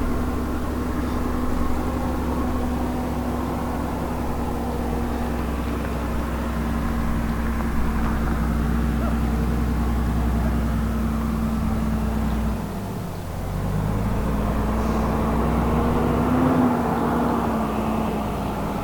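A motor vehicle's engine running at a low, steady speed. About thirteen seconds in its note drops briefly, then picks up again.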